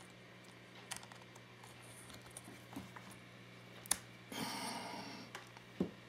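Faint small clicks and a brief rustle of a Crucial P3 Plus M.2 NVMe SSD being handled and slid into its slot in a laptop motherboard, over a faint steady low hum.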